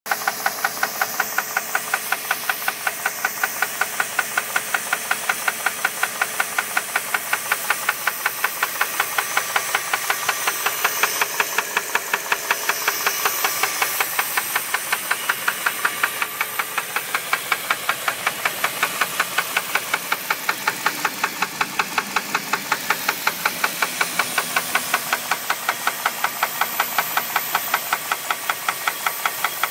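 2001 Jeep Grand Cherokee's 4.7-litre V8 running with a steady, rhythmic knock several times a second. The owner asks whether it is rod knock or something else.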